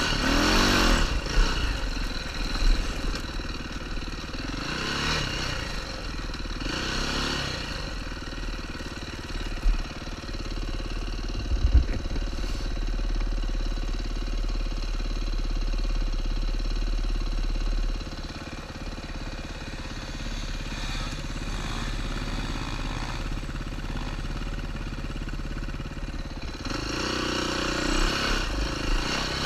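KTM 530 rally motorcycle's single-cylinder four-stroke engine running under way, its revs rising and falling in the first several seconds and again near the end, steadier in between. A couple of sharp knocks are heard about ten and twelve seconds in, and the engine note drops a little after about eighteen seconds.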